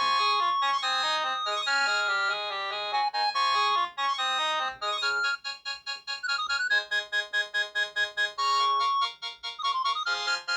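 Samsung SGH-T100 mobile phone playing a synthesized polyphonic ringtone melody. About halfway through, the held notes give way to quick, short repeated notes.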